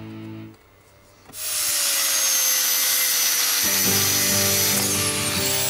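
Angle grinder with a thin cut-off disc cutting through a metal bar held in a vise: a high whine over harsh grinding noise that comes in suddenly after a short pause. Its whine dips in pitch near the end.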